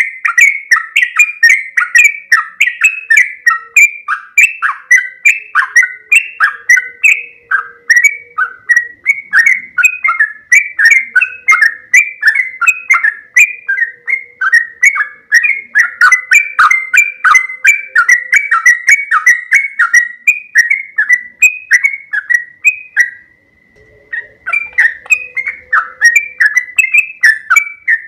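Sooty-headed bulbul singing a long, unbroken rolling song: quick, bubbly notes about three a second, with one brief pause about 23 seconds in.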